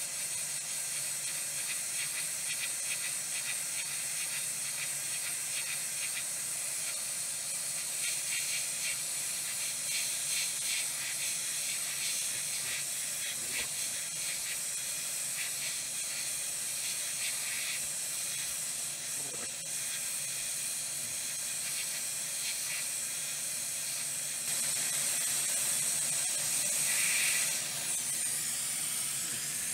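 Hot air gun blowing a steady hiss of hot air onto a circuit board to desolder its soldered-down metal shielding cans. The hiss gets a little louder for a few seconds near the end.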